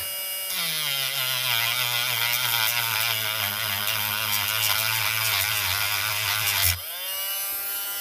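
Dremel rotary tool with a sanding drum grinding into a brass terminal block, cutting through its plating. From about half a second in, the motor note drops and wavers under load over a gritty grinding noise. Just before the end the drum is lifted off and the motor speeds back up to a higher, steady whine.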